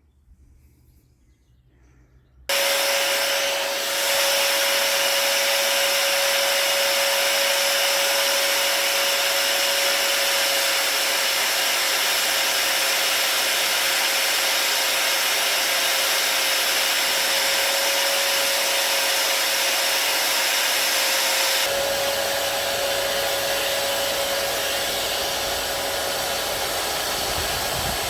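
An electric power tool motor switches on abruptly a couple of seconds in and runs at a steady speed, giving one constant whine over a loud hiss.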